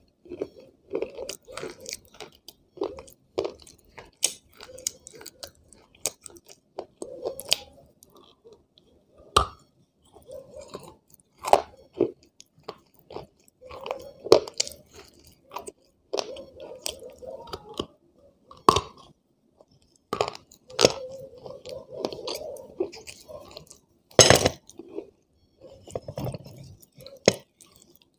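A person chewing and crunching pieces of dry white clay close to the microphone: irregular crisp crunches with softer grinding chews between them, with a few louder crunches, the loudest near the end.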